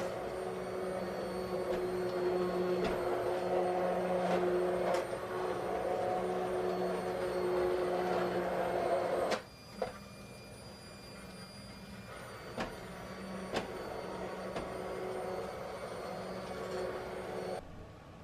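Electric immersion (stick) blender running in a pan of creamy soup: a steady motor hum, with sharp knocks of the blade guard against the pan. About nine seconds in, the loud hum drops away abruptly, and a quieter hum with a few knocks follows.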